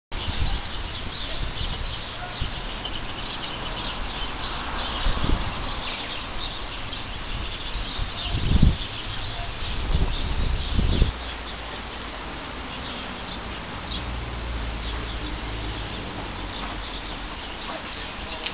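Birds chirping in many short, quick calls, thickest in the first half, over steady wind noise on the microphone that swells into low rumbling gusts several times in the middle.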